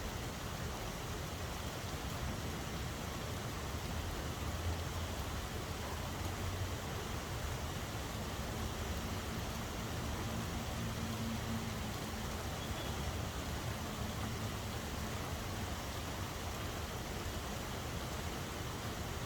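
Steady rain falling, an even hiss with no breaks. A faint low hum and rumble sit under it for several seconds in the middle.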